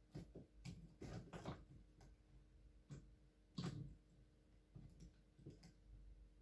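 Faint, scattered clicks and knocks of plastic K'nex rods and connectors being handled and pushed together while an arm is fitted onto the model.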